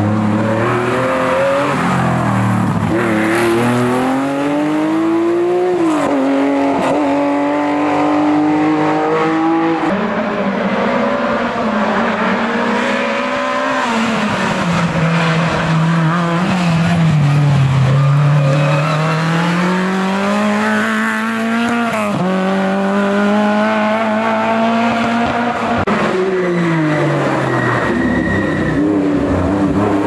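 Historic rally cars driven hard through a tight bend one after another, among them Porsche 911s. Their engines rev high, fall sharply on gear changes and braking, then climb again as the cars accelerate away.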